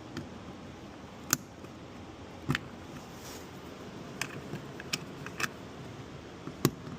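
Irregular sharp clicks and taps, about half a dozen, from hand tools and car trim parts being handled during disassembly.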